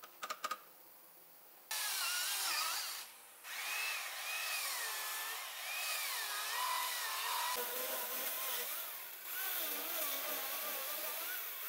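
Corded electric chainsaw cutting around the edge of a thick round wooden slab to shape a tabletop. After a few light clicks it starts up about two seconds in, and its motor whine wavers up and down as it bites. It lets off briefly about three seconds in and dips again near nine seconds.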